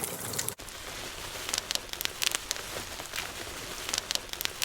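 Bubble wrap being crumpled, with bubbles popping in an irregular crackle that imitates a campfire. There is a brief break about half a second in.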